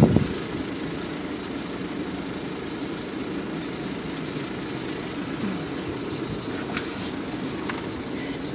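Steady low rumble of a car's engine idling, heard from inside the stationary car's cabin.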